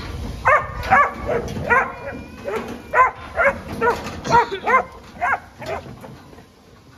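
Working sheepdog barking in a rapid series, about two barks a second, while sheep are pushed along a yard race. The barking stops about six seconds in.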